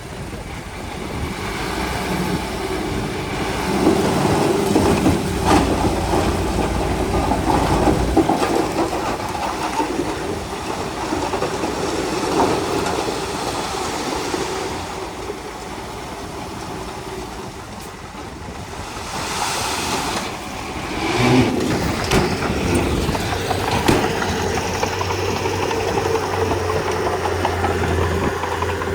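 Komatsu D31P crawler bulldozer's diesel engine running, its load swelling and easing, with the clanking of its steel tracks and a few sharp knocks.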